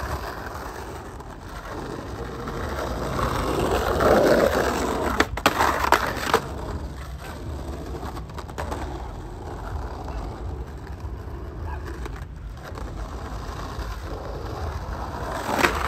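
Skateboard wheels rolling over rough asphalt, a steady rumble, with a few sharp clicks and knocks a little past the middle and again near the end.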